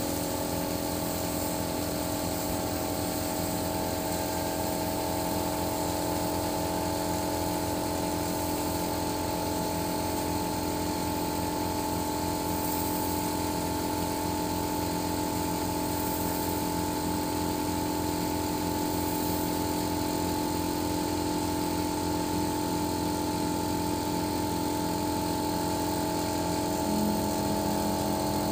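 Truck-mounted crane's engine running steadily at idle, a constant hum with a fast low pulse; a new low tone joins near the end.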